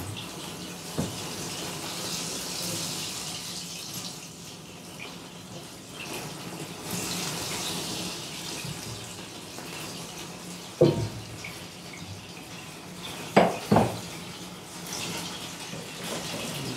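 Small open fire burning on a tray with a steady hiss. There are three sharp knocks, one about two-thirds of the way through and two close together shortly after, as metal tongs are handled over the tray.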